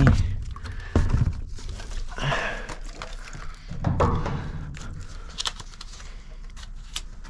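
Rummaging through discarded packaged goods: packaging crinkling and rustling, with irregular knocks and clicks as items are grabbed and moved.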